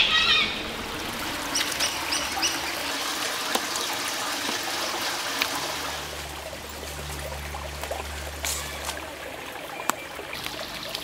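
Creek water trickling steadily through a stone culvert, with a few short high chirps about two seconds in and a low hum for a few seconds in the middle.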